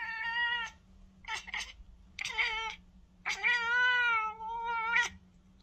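Siamese cat meowing four times in drawn-out calls, the last one long, close to two seconds.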